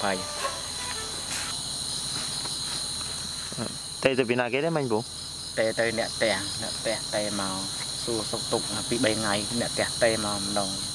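Night insects trilling in a steady, high-pitched chorus, with people's voices heard from about four seconds in.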